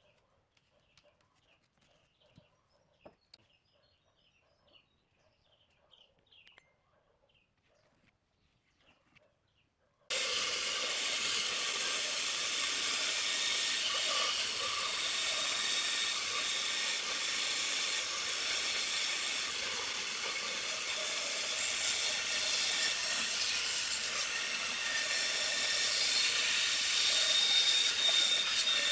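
Faint bird chirps, then about ten seconds in a woodworking power tool cuts in suddenly and runs steadily with a hissing, rushing noise.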